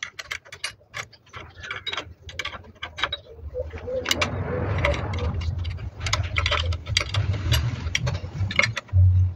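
Hand ratchet wrench clicking in repeated short strokes as bolts are tightened on the engine, with light metal clinks of tools. A dull bump near the end.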